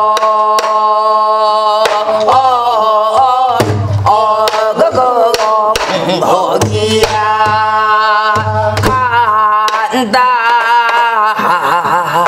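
A woman sings the lead call of a Korean folk song, holding long wavering vowels ("eo-eo-eo, eoheo, eogiya") and then starting the line "ganda ganda" near the end. She accompanies herself on a buk barrel drum, with sharp stick strikes and a deep drum thump every two to three seconds.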